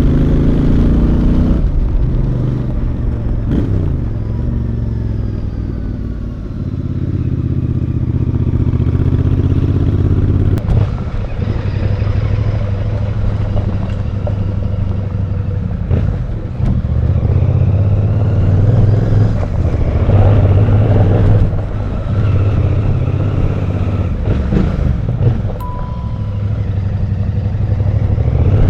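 Royal Enfield Bear 650's 648cc parallel-twin engine heard from the rider's seat while riding. The revs rise and fall: a sharp drop about a second and a half in, a gradual climb a few seconds later, and further changes of pitch around ten and sixteen seconds.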